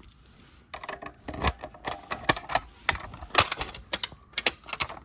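Fire alarm pull station being worked by hand: a string of sharp plastic and metal clicks and clacks from its handle, cover and key, several a second at uneven spacing, starting about half a second in.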